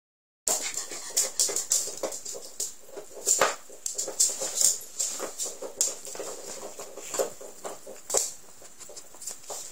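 A terrier dog making a run of short, irregular noises, with several louder sharp ones along the way.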